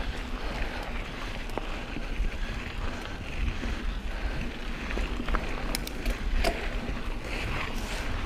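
Wind rushing over a bike-mounted camera's microphone with the knobby tyres of a Specialized Stumpjumper mountain bike rolling fast over a dirt singletrack, broken by a few sharp clicks from the bike.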